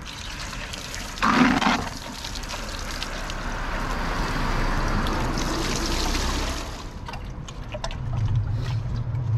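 Water poured from a bucket over a small mud-filled safe: a loud splash about a second in, then a steady pour running off the safe onto the pavement, stopping about seven seconds in.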